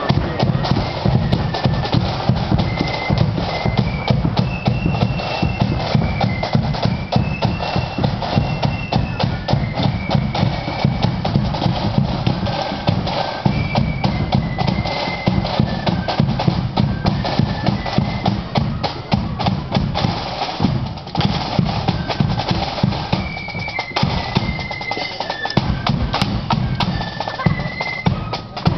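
Marching band playing on parade: snare and bass drums beating a brisk march, with a high melody of stepping notes carried above the drums.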